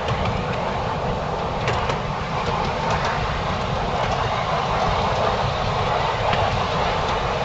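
Miniature railway train running along its track, heard from the front of the train: a steady running noise with a few scattered clicks from the wheels on the rails.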